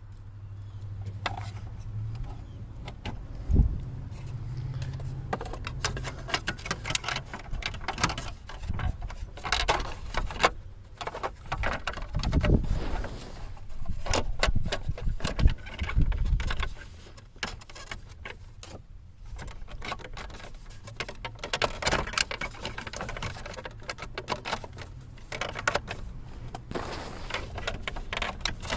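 Hands fitting plastic steering-column trim back together: an uneven run of clicks, taps and rattles, with a few heavier knocks a few seconds in and again around the middle.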